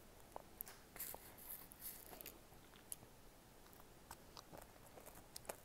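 Faint eating sounds: a small plastic spoon clicking and scraping in a plastic candy tray, with mouth smacks as a child licks candy off the spoon. Scattered small clicks, with a short scraping stretch about a second in.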